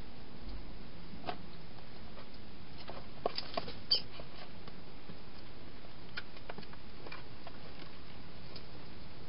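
A wild hedgehog moving about inside a clear plastic feeding box, making scattered light clicks and knocks. A short cluster of them comes about three to four seconds in, ending in the loudest, sharper knock, with a few more later, all over a steady hiss.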